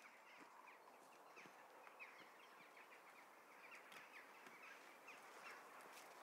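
Near-quiet forest with faint, rapid small-bird chirps and a few soft knocks.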